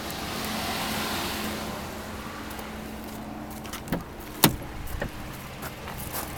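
Passing traffic swells and fades in the first couple of seconds, then the pickup's driver door latch releases with a sharp click about four and a half seconds in as the door is pulled open, followed by a few lighter knocks.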